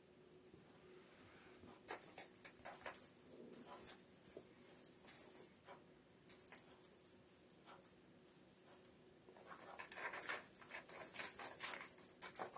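A cat rustling and pushing through the plastic branches of a toppled artificial Christmas tree, a shaky rattling hiss. It comes in three spells, starting about two seconds in, again around six seconds, and loudest near the end.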